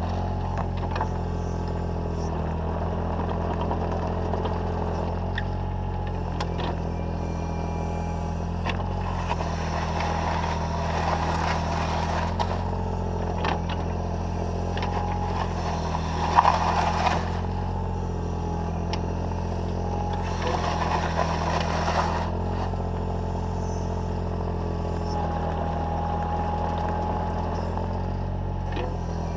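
Takeuchi TB014 mini excavator's diesel engine running steadily, with the bucket scraping and clattering through gravel and mud several times, the loudest scrape about halfway through.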